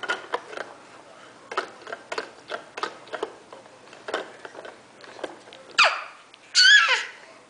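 Irregular clicking and tapping of small hands slapping the plastic toys of a baby activity centre. Near the end a baby gives two high squeals of delight that fall in pitch, the second the loudest.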